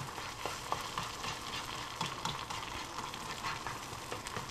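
Eggs sizzling in a hot non-stick skillet while they are scrambled with a whisk, with light, irregular taps of the whisk against the pan over a steady hiss.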